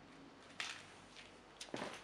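Soft crinkling from handling a small plastic drone propeller and its wrapping: two brief rustles, one about half a second in and a louder one near the end.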